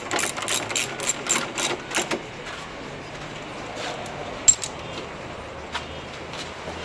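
A quick run of sharp clicks, about four a second for the first two seconds, then a quick pair of clicks about halfway through, over a faint steady background.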